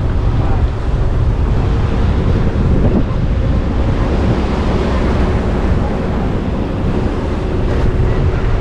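Wind buffeting the microphone over the steady wash of rough sea surf breaking against a concrete seawall.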